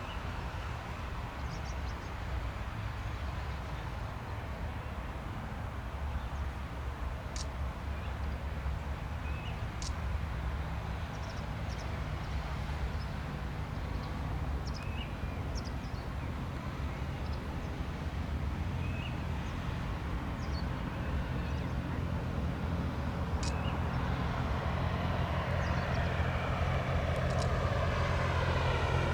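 Propeller drone of a Cessna 172M's four-cylinder Lycoming engine, growing slowly louder as the plane approaches, its pitch sweeping in the last few seconds. Faint short chirps and ticks are heard over it.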